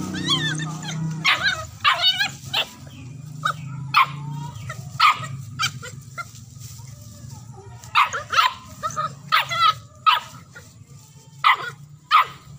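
Novice hunting dog barking repeatedly at a lure held out on a stick, short sharp barks and yips in clusters of two or three with brief pauses between.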